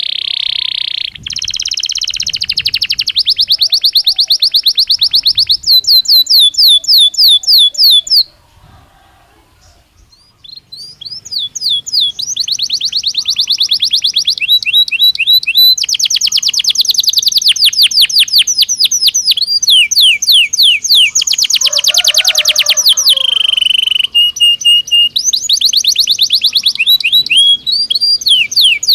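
Belgian canary singing: long runs of fast, rapid trills and rolling repeated notes, with a pause of about two seconds a third of the way through.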